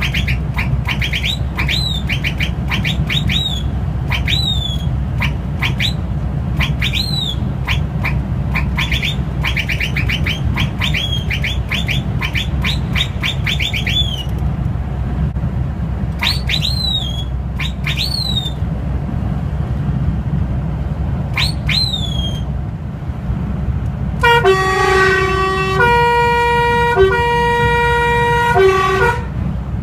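A truck's "Turkish whistle" (sifflet turc) horn sounding many quick whistles that swoop up and hook back down, like bird chirps, over the steady drone of the truck's engine and road noise in the cab. Near the end a horn plays a short run of loud, held, multi-note chords that change pitch several times.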